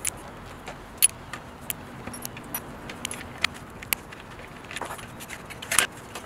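Small metal parts clicking and clinking as a metal bracket, screws and a screwdriver are handled and set down on a wooden bench: a string of short sharp taps, with a louder clatter near the end.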